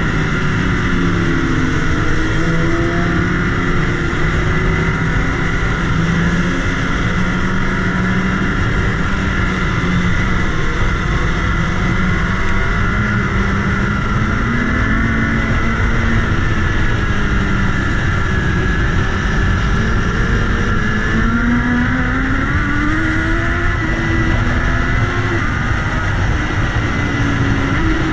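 BMW S1000RR's inline-four engine running on the move, its note rising and falling gently with the throttle, over a steady rush of wind on the bike-mounted microphone.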